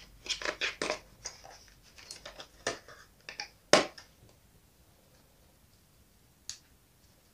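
Light clicks and crackles of the toy's box packaging as a small flocked rabbit figure is worked loose from its cardboard display insert, with a sharper click a little under four seconds in. The handling then stops, with one faint tick later.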